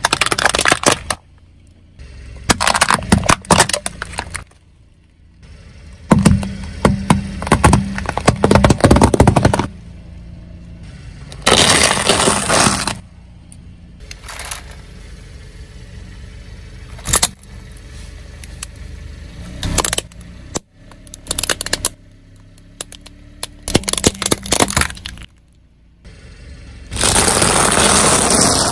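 A car tyre rolling over and crushing objects one after another, plastic toys and brittle food cracking, snapping and crunching. The crushing comes in about eight separate bursts, some sharp and snapping, some a longer hissing crunch. A low engine hum runs between them.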